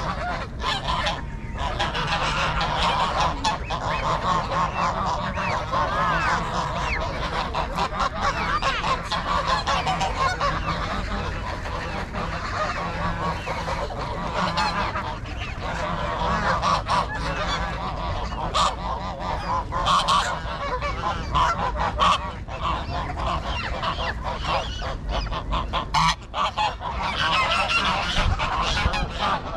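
A mixed flock of domestic and Canada geese honking, with many calls overlapping and no let-up.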